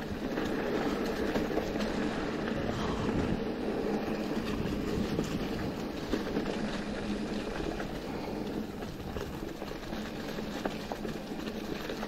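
Mountain bike rolling over a rough trail: steady tyre rumble and rattle of the bike, with scattered clicks and knocks, easing slightly near the end.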